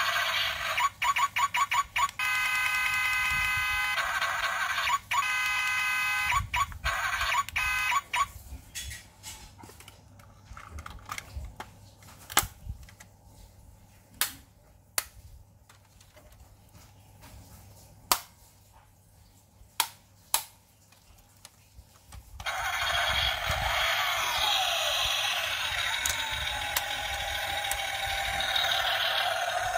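A toy car's built-in sound chip plays a string of electronic tones, set off from its key-fob remote. A few sharp plastic clicks follow. About two-thirds of the way in, a small electric drive motor starts whirring steadily as the wheels spin freely.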